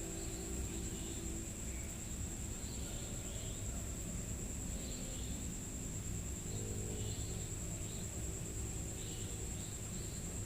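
Night insects such as crickets: a steady high-pitched trill with short chirps every second or two, over a low background rumble.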